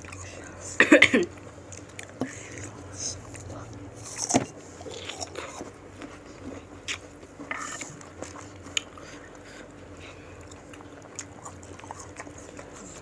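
Crunchy bites into raw jicama, a loud cluster of crisp crunches about a second in and another at about four seconds, followed by close chewing with smaller crunches.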